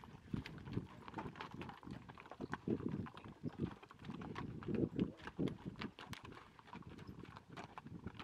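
Hooves of a string of mules clopping on a rocky dirt trail as they walk single file, an irregular, overlapping patter of hoof strikes.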